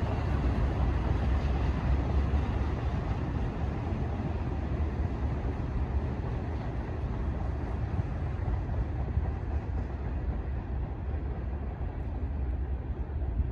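Freight train cars rolling past on the rails: a steady low rumble with a hiss of wheel noise that slowly fades over the second half.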